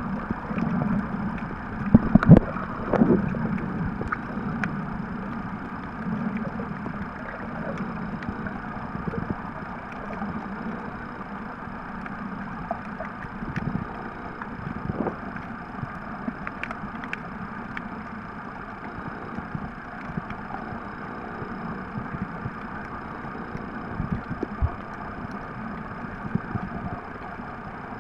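Muffled underwater sound picked up by a camera held below the surface: a steady rumble and hiss of moving water, with a few knocks about two to three seconds in and scattered small clicks.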